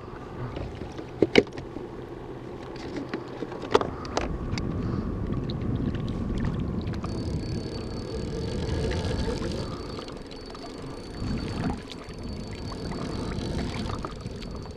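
A kayak paddle working the water beside a fishing kayak: splashing wash with wind on the microphone, swelling and easing with the strokes. It is preceded by a few sharp knocks of gear against the hull in the first four seconds.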